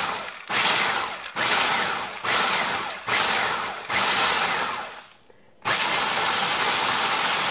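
Cuisinart Elemental 11-cup food processor, fitted with the chopping blade, being pulsed on peanuts with sugar and spices. It runs in a string of short pulses of a bit under a second each, back to back. After a brief pause a longer run of about three seconds starts near the end.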